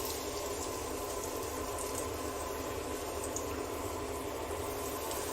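Coated fish sizzling steadily in hot oil in a pan during shallow frying.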